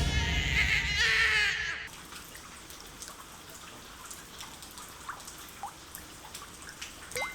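A music cue with a beat cuts out about two seconds in, leaving a quiet background of scattered water drips and faint ticks, with a few short rising chirps.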